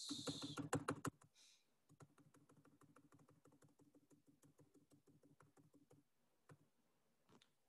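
Near silence with a run of faint, rapid clicks from the computer as the document is scrolled down, loudest in the first second, over a faint low steady hum.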